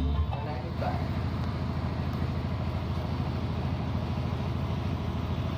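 Music cuts off right at the start, leaving an engine idling steadily as a low, even rumble.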